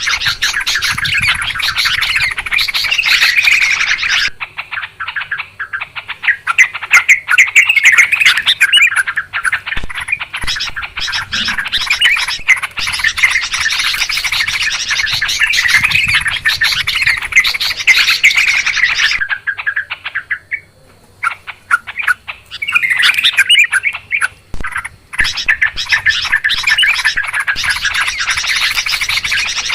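Yellow-vented bulbuls (trucukan) chattering noisily, a dense run of rapid bubbling calls from several birds. The chatter drops away abruptly a few times, as at the joins of a looped lure recording.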